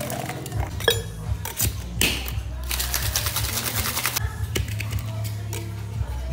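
Stainless steel tin-on-tin cocktail shaker: a few sharp metal clacks as the tins are fitted together, then shaken hard for about a second and a half as a fast, even rattle. A steady low hum sits underneath.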